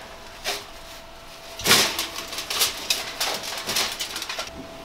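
Knocks and rattles of a plastic car tail light housing being set onto a foil-covered wire oven rack: one knock about half a second in, then a quick run of clattering knocks for about three seconds, over a faint steady hum.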